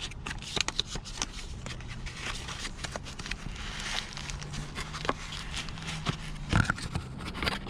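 Handling noise: rustling with scattered light clicks and taps as a shift knob and its packaging are handled, over a low steady hum.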